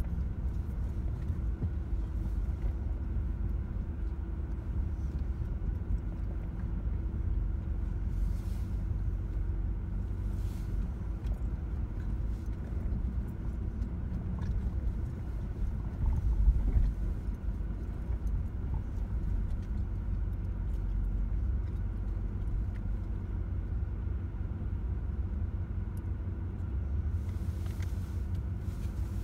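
A 4x4's engine running at trail-crawling speed, heard from inside the cab as a steady low rumble, with a brief louder bump a little past halfway through.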